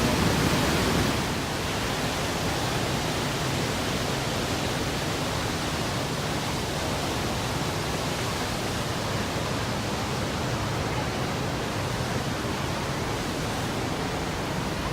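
The Rhine Falls, a large river waterfall, rushing as a loud, steady wall of noise; it drops a little in level about a second in, then holds steady.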